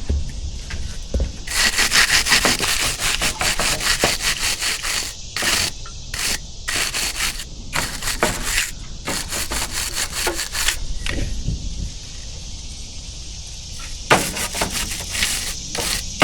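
Fast rubbing strokes in stop-start bursts.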